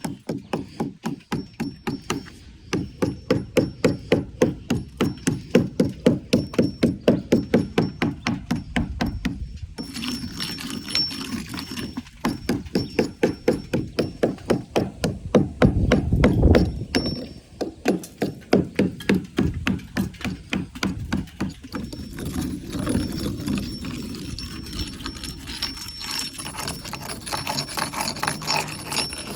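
Hammer striking old chimney brick and mortar, knocking loose the deteriorated top courses: long runs of rapid, steady blows, with a short break about ten seconds in and a looser, less even stretch past the middle.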